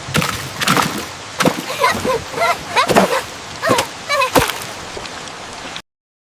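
Cartoon sound effects: a quick series of sharp cracks and snaps mixed with short gliding chirps. They stop abruptly about a second before the end.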